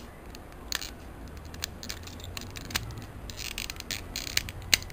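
Plastic parts of a Transformers Generations Cliffjumper figure clicking and scraping as they are folded and pressed together by hand into car mode: a scatter of short sharp clicks, the loudest near the end.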